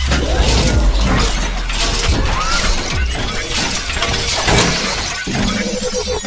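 Sound effects of an animated video intro: dense crackling and shattering over a heavy low rumble. From about five seconds in, a quick repeating tone joins.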